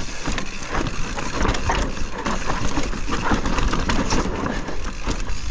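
Mountain bike clattering down a steep, rocky trail: irregular knocks and rattles from tyres and frame hitting rock, over a steady low rumble.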